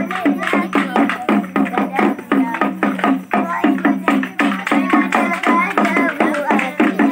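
Jhumur dance music: a hand drum beaten in a fast, steady rhythm of about four to five strokes a second, with voices singing over it.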